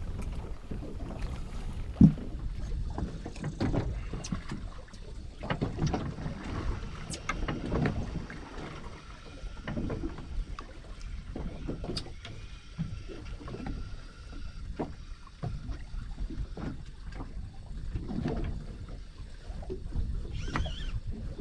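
Water slapping and sloshing irregularly against the hull of a small boat at sea, with a single sharp knock about two seconds in.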